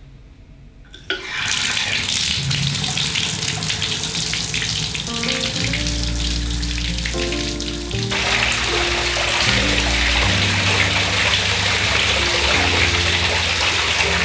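Bathtub filling from a wall-mounted spout: water starts rushing suddenly about a second in and gets louder around eight seconds in as it splashes onto the tub floor. Background music plays underneath.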